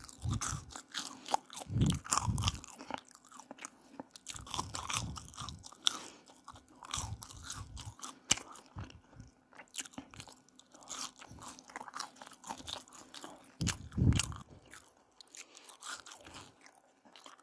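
Close-miked eating of fast-food french fries: crisp crunching bites and chewing in an irregular run of small crackles, with heavier bites about two seconds in and near the end.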